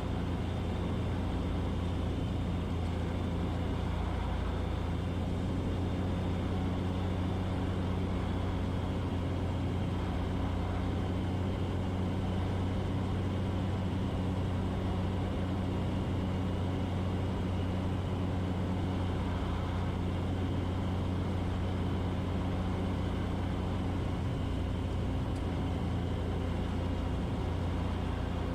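Cessna 182's piston engine and propeller droning steadily, an even low hum with no change in pitch or level.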